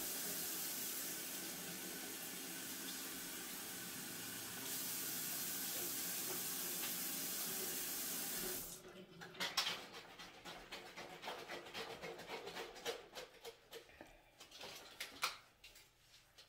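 A steady rush of running water, as from a tap, that gets a little louder about halfway and cuts off suddenly about nine seconds in. After it come light, scattered clicks of food being handled.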